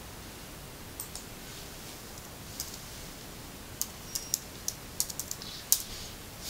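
A series of light, irregular clicks over a faint steady hiss, sparse at first and coming thicker near the end.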